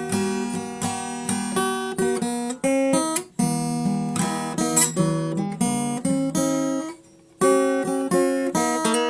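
Solo acoustic guitar playing a lively piece of plucked notes and strums, with notes cut off sharply and a short pause about seven seconds in before the playing resumes.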